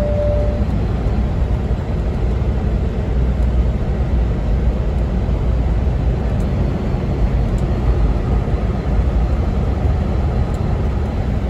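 Semi-truck driving down a long grade: steady low engine and road rumble heard inside the cab. A short single tone sounds briefly at the very start.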